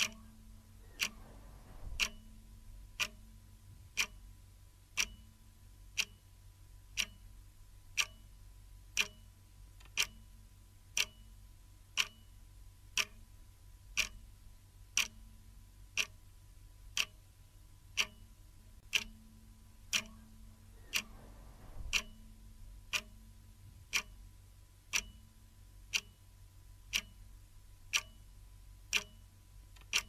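Clock ticking steadily, one sharp tick a second, over a faint steady hum.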